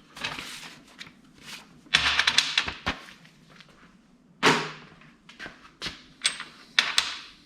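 Steel welding-table parts being set in place: an irregular series of sharp metal clanks and knocks, each with a brief ring, about ten in all.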